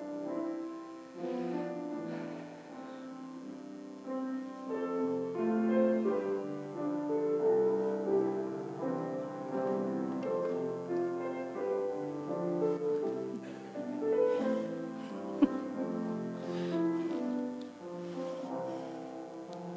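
Slow, quiet piano music, one held note or chord after another, with a single sharp click about fifteen seconds in.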